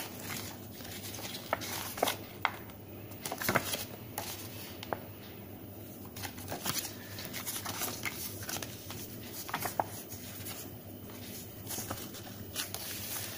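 Paper rustling as a folded instruction leaflet is unfolded and leafed through by hand, with scattered sharp crackles of the paper and cardboard.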